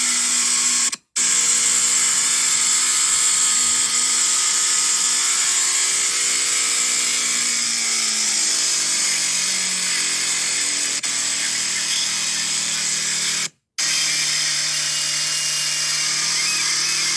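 Kawasaki Ninja 250's parallel-twin engine running, its pitch easing down a little over a few seconds near the middle and then holding steady. The sound cuts out twice, very briefly.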